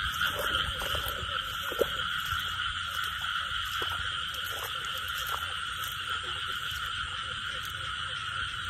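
A steady chorus of frogs calling from flooded field water, with insects trilling very high in a pulsing rhythm of about two pulses a second.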